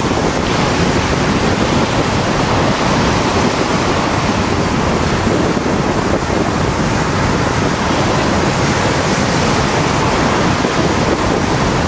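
Storm waves on a lake surging and breaking against a sloping rock revetment: a steady, loud rush of surf with no separate crashes standing out. Wind rumbles on the microphone underneath.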